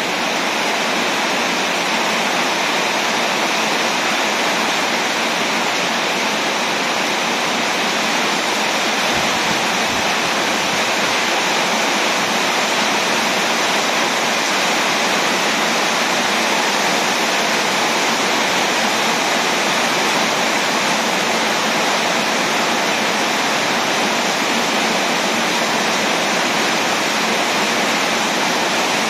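Heavy tropical rain pouring steadily in a dense, even hiss.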